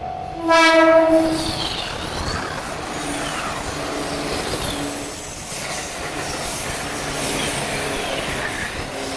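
JR Kyushu 415 series electric train sounding its horn once for about a second, then passing close by with the wheels clattering over the rails. The rumble builds and then fades as the train goes by.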